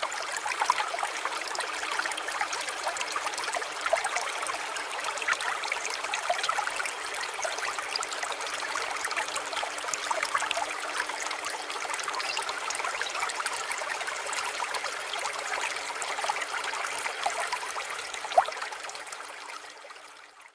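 Water trickling and babbling steadily, like a small garden stream, fading out over the last couple of seconds.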